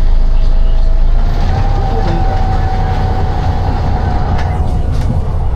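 City bus in motion, heard from inside: a steady low engine and road rumble with a thin whine that rises slightly about a second and a half in.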